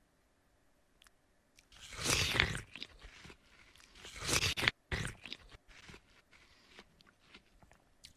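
Crunchy eating sounds: two loud bites about two seconds apart, each followed by shorter crunching and chewing noises.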